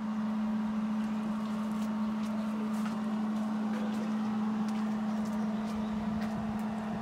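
Gas torch burning steadily, with a hum at one pitch over a hiss, as it heats steel hydraulic hose fittings to loosen a stuck hose.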